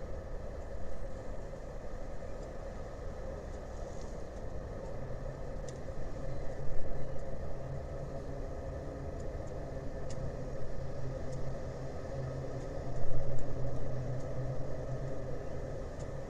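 Steady low engine rumble, with a deep hum that grows stronger about five seconds in. The rumble swells louder twice, near the middle and later on, and a few faint light clicks sit on top.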